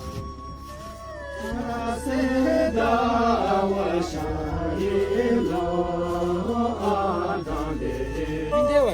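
Background music of several voices chanting in harmony over a steady low drone, swelling about a second and a half in.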